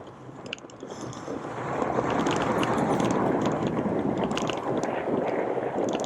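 Wind rushing over the microphone of a moving bicycle, swelling about one and a half seconds in and staying loud, with scattered light clicks and rattles.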